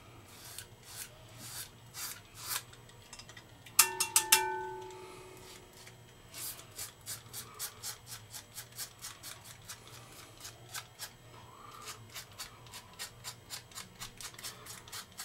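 Gillette Mach 3 three-blade cartridge razor scraping through lathered stubble, a raspy scratch with each short stroke, sparse at first and then several strokes a second through the second half. About four seconds in, a few sharp clinks with a brief ringing tone.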